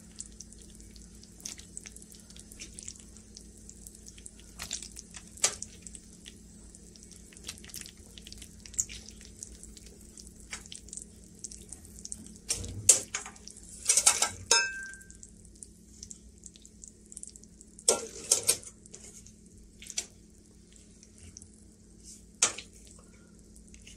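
Drained elbow macaroni tipped from a metal colander into a pan of cheese sauce: scattered knocks and clinks of metal against the pan, with soft wet plops of pasta, loudest in two clusters in the middle of the stretch. A faint steady hum runs underneath.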